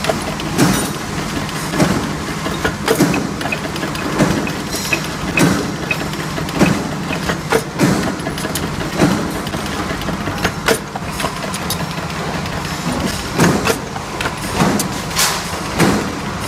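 Punch press stamping steel hinge plates: a sharp metallic strike about once a second over the steady hum of the running machine, with a pause of a couple of seconds past the middle.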